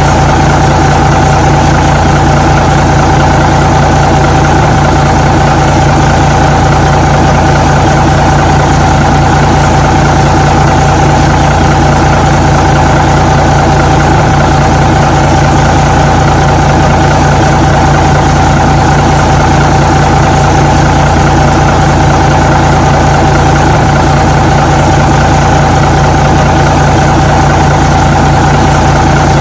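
Truck engine idling steadily, with an even, unchanging drone and a constant hum.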